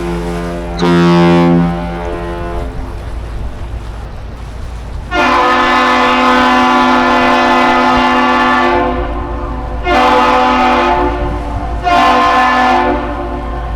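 Ship and bridge horns exchanging the captain's salute, the greeting of one long blast followed by two short ones. A deeper horn finishes its second short blast about a second in; then a higher horn sounding several pitches at once answers with one long blast of about three and a half seconds and two short blasts.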